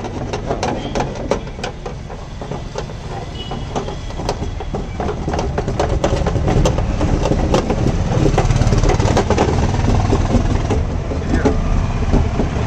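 Hands and tools knocking and rattling against the bare steel inner panel of a Mahindra MM550 jeep door, a quick string of small clanks and clicks, over a low steady rumble that gets louder about halfway through.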